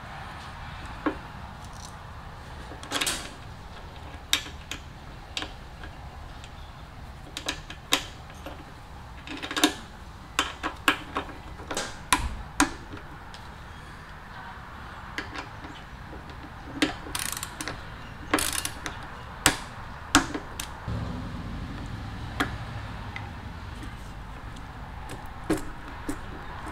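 Irregular light clicks, taps and small rattles of metal parts and hand tools as a Keihin PE28 carburetor is fitted and fastened to a small motorcycle engine's intake manifold. Busiest around ten to twelve seconds in and again near twenty seconds, over a low steady hum.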